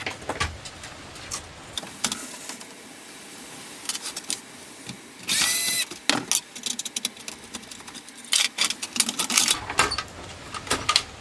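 Clicks, knocks and rattles of laptop parts and tools being handled during disassembly, with a louder, half-second scraping whine about five seconds in.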